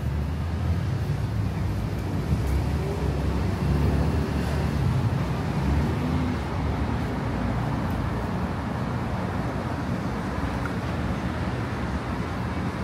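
Street traffic on a busy city boulevard: a steady low rumble of cars and tyres, growing a little louder as vehicles pass about four seconds in.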